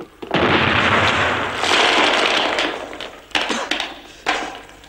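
Wartime film gunfire: a sudden loud crash of shooting begins just after the start, rumbles on for two or three seconds and dies away, then a couple of single sharp shots follow.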